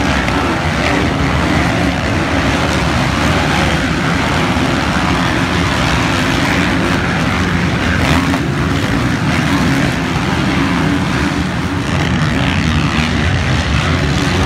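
A pack of motocross bikes racing on the track, their engines running hard together in a loud, continuous din.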